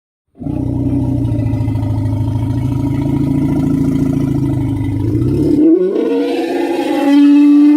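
Elephant giving a long, low, pulsing roar for about five seconds. It then changes into a higher call that rises in pitch and holds a strong steady note near the end.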